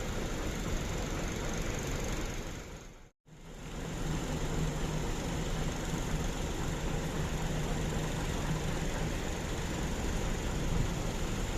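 Large diesel bus engine idling steadily with a low drone. The sound drops out completely for a moment about three seconds in, then returns.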